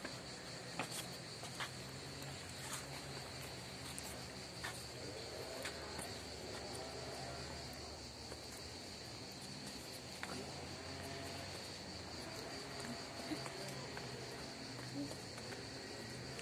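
A steady, high-pitched chorus of insects that goes on without a break, with scattered light clicks and faint distant voices underneath.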